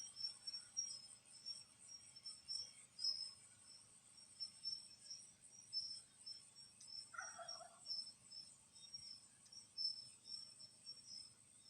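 Faint rainforest insect chorus: a steady high-pitched drone with a row of quick, pulsing chirps on top. A single short bird call sounds about seven seconds in.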